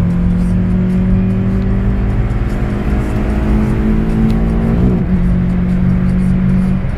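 Volkswagen Golf Mk2 GTI 16v's 1.8-litre 16-valve four-cylinder engine pulling under load, its note rising slowly. About five seconds in the pitch briefly wavers and settles a little lower, then it starts climbing again.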